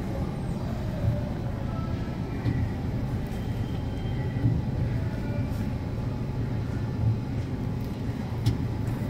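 Steady low hum and rumble of a warehouse store's background noise, with a few faint small clicks.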